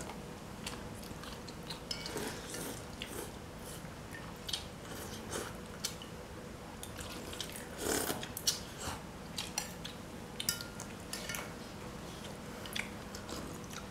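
Eating sounds: scattered chewing and lip-smacking, with light clicks of fingers and a spoon against plastic and glass bowls.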